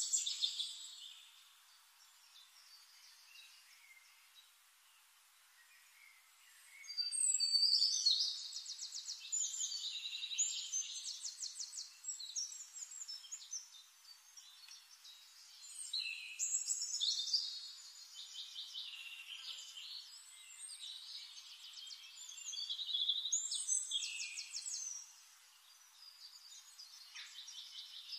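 Forest songbirds singing: after a few quiet seconds, several birds sing in recurring bursts of high-pitched phrases with rapid trills, some overlapping.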